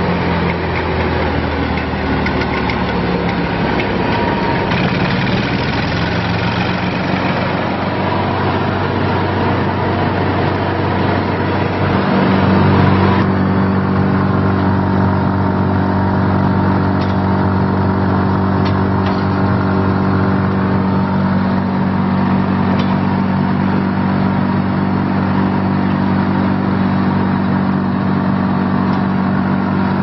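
Vermeer BC700XL wood chipper's 25 hp Kohler V-twin engine running steadily. About twelve seconds in its note shifts and gets a little louder, then it runs on evenly.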